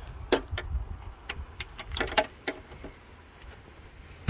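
Irregular light clicks and taps from tools and metal hardware being handled while a hasp is riveted to a minivan door.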